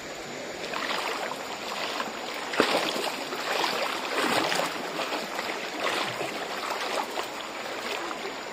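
Irregular splashing and sloshing of river water over the steady rush of the flowing stream, with one sharp knock about two and a half seconds in.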